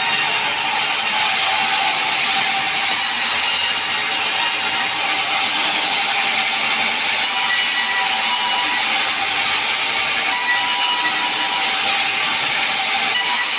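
Large sawmill saw and its machinery running steadily and loudly, cutting pine into boards.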